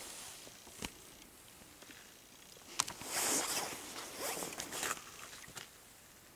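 Spinning reel on an ice-fishing rod being worked, with a sharp click a little under a second in and another near three seconds, then about two seconds of raspy, zipper-like bursts as the reel is cranked.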